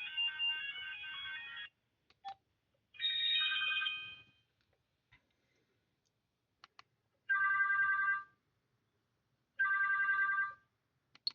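Digma Linx A106 phone's built-in ringtones playing through its small speaker. A melody stops abruptly about two seconds in. Then come three short electronic tone bursts of about a second each, separated by short silences and a few sharp clicks.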